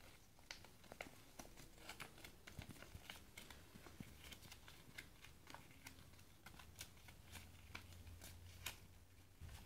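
Faint rustling and crinkling of a paper leaflet being folded and handled, a scatter of small irregular clicks.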